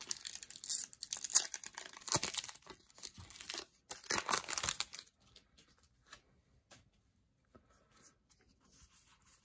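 A foil Pokémon booster pack wrapper being torn open and crinkled by hand, in bursts of crackling, for about five seconds. Then faint ticks and rustles as the cards are slid out and handled.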